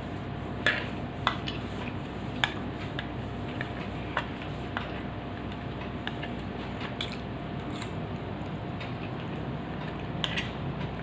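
Cutlery clinking against a dish of macaroni several times at uneven intervals while someone eats, with faint chewing in between.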